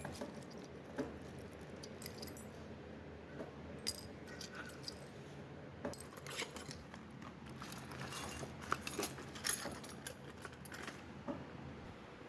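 Light metallic clicks and jingles of keys and small door-lock parts being handled, coming at irregular intervals and most frequent in the second half.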